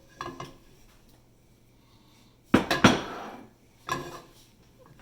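Metal cookware and utensils clanking on the stove. There is a light knock near the start, then two sharp strikes with a short ring about two and a half seconds in, and another knock a second later.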